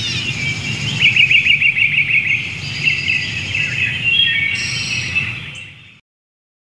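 Birdsong: several birds chirping, with a rapid trill about a second in. It fades and cuts off about six seconds in.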